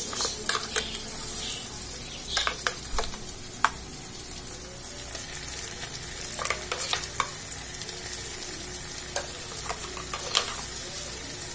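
Onions and a wet masala paste frying in hot oil in a steel kadai: a steady sizzle, broken by scattered sharp clicks and scrapes of a metal spoon and spatula against steel.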